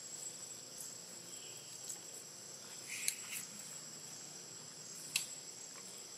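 Steady high-pitched insect drone, with a few sharp clicks, the loudest about three and five seconds in.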